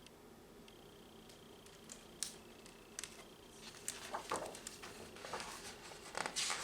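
Faint rustling and light clicks of something being handled, in a quiet small room; sparse at first, busier in the second half.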